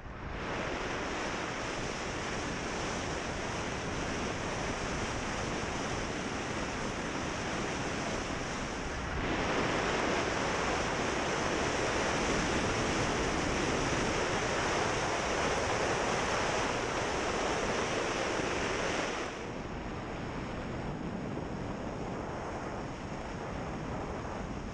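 Wind rushing over the microphone of a camera on a moving motorbike, a steady even hiss with no clear engine note. It jumps louder about nine seconds in and drops back about ten seconds later.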